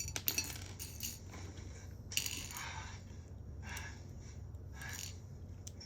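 A scatter of short, light clinks and rattles in a few irregular clusters, the busiest in the first second and again about two seconds in.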